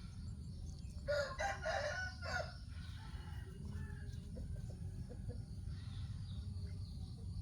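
An animal call about a second in, lasting about a second and a half, over a steady low rumble.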